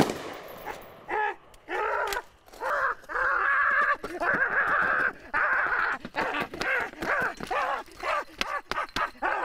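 A man's wordless high-pitched shrieking, coming in repeated bursts.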